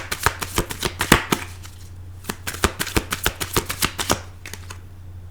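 Tarot cards being shuffled by hand: a run of quick flicking clicks, a brief pause at about two seconds, then a second run that stops about four seconds in.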